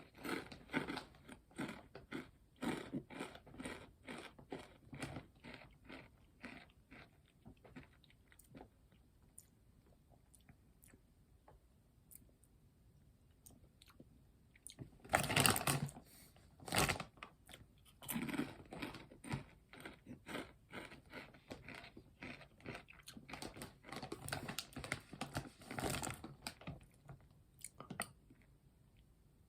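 Close-up chewing and crunching of kettle-cooked potato chips, a quick steady run of crunchy chews that dies down after several seconds. A couple of louder crunches about halfway through are followed by more chewing.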